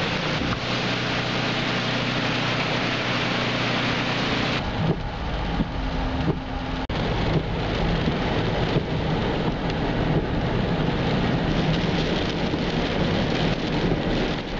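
Hurricane wind and heavy rain give a dense, steady hiss. About four and a half seconds in it cuts abruptly to the steady drone of a car driving along a flooded highway, its tyres pushing through standing water, with a few short knocks.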